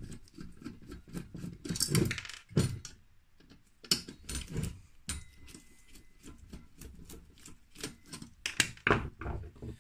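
Irregular small metallic clicks and clinks of a Phillips screwdriver loosening screws on a Coleman 533 petrol stove, with the loosened metal parts being handled.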